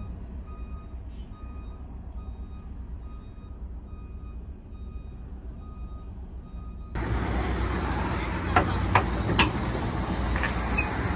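Truck reversing alarm beeping in a steady on-off rhythm over a low diesel engine rumble as the loaded trailer is backed. About seven seconds in the sound cuts abruptly to a louder truck engine running, with three sharp knocks shortly after.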